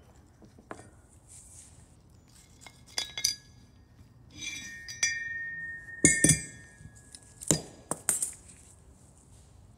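Metal clinks and knocks as the nose gear steering collar and its thin shim rings are slid off the strut tube and handled. One of them rings for about a second near the middle, and the loudest knocks come around six and eight seconds in.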